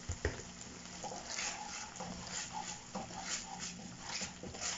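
Wooden spatula stirring and scraping a thick sauce in a nonstick frying pan. A couple of light knocks come near the start, then short scraping strokes about three a second, over a steady low hum.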